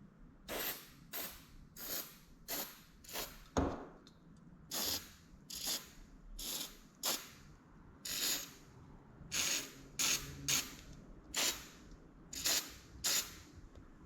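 Aerosol can of PB Blaster penetrating oil sprayed in about eighteen short squirts onto seized nuts, with one sharp click about four seconds in.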